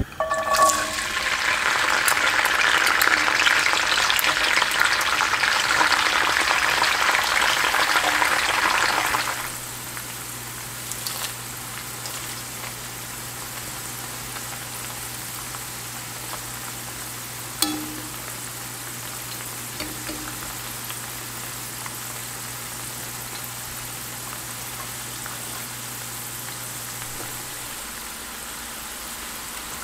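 Garlic cloves frying in hot olive oil, a dense crackling sizzle that is loud for about the first nine seconds after they go in, then settles to a quieter, steady bubbling sizzle.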